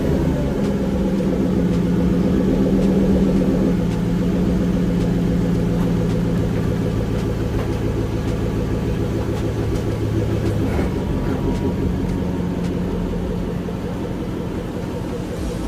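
Truck engine just after starting, its revs dropping to a steady idle within the first second. It idles evenly, and one low note drops out about eleven seconds in.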